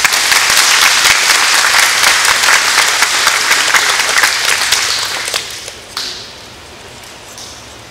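Audience applauding: dense clapping that thins and dies away about five to six seconds in.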